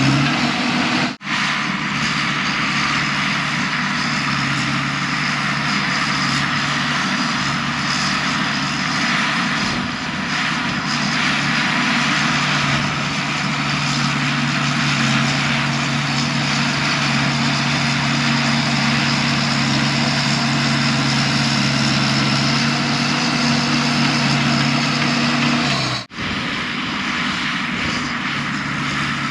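Heavy earthmoving machine's diesel engine running steadily under load while stripping topsoil, with a dense mechanical clatter and rush over it. The sound drops out for an instant about a second in and again near the end.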